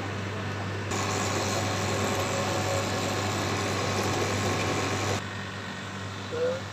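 Industrial tumble dryer running: its electric motor and V-belt pulley drive turning the drum with a steady low hum, and a louder, even whirring for about four seconds in the middle. The drum turns one way only; the machine has a fault that stops it reversing.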